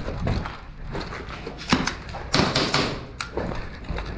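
Sharp knocks and clacks, one about a second and a half in and another about three seconds in, with a short burst of scraping or rustling between them.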